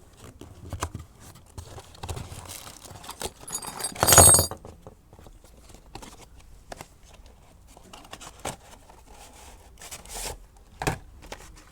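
A Beyblade set's packaging being opened by hand: scattered rustling and small clicks, with one loud tear about four seconds in.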